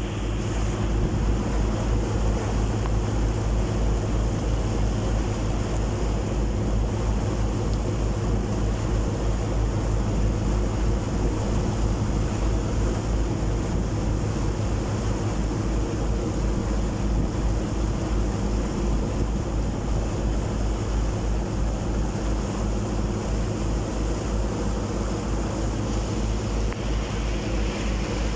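A ferry's engine running steadily, a low drone with a fast, even throb, over the rush of churning wake water and some wind on the microphone.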